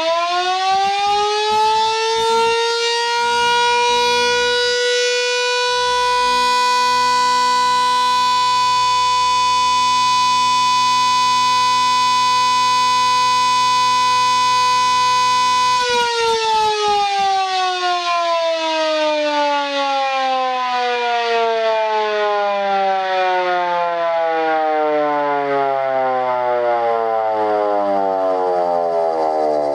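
Elektror S2a electric rotary siren keyed by an SAG F2 siren controller for the East German fire-alarm signal. It winds back up to full pitch, holds a steady wail for about fifteen seconds, then is switched off and winds down in a long falling tone.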